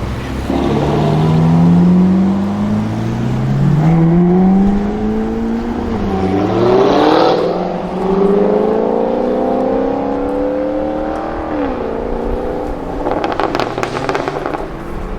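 Jaguar F-Type SVR's supercharged 5.0-litre V8 accelerating hard through several gears, its pitch climbing and then dropping at each upshift. A burst of exhaust crackles and pops comes near the end.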